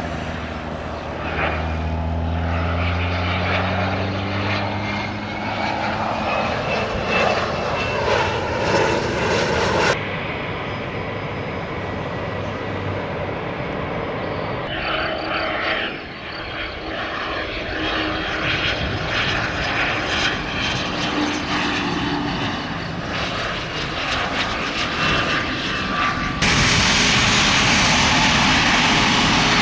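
Turbofan engines of Cessna Citation business jets, heard in several clips with abrupt cuts between them. First a jet on approach, its low engine tones falling in pitch, then steady jet noise with a thin whine. About 26 seconds in, the sound suddenly becomes louder and a steady rush of jet noise.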